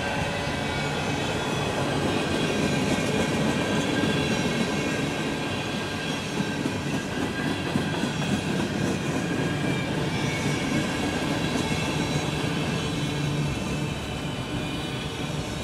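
Freight cars rolling past at close range: a steady rumble and clatter of steel wheels on the rails, with faint thin high tones from the wheels above it.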